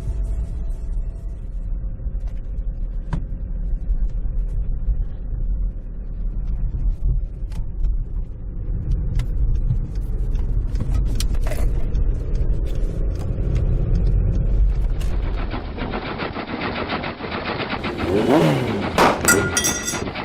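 A low, steady engine-like rumble with scattered clicks, which gives way about fifteen seconds in to a brighter hissing sound with a squealing glide that falls and rises near the end.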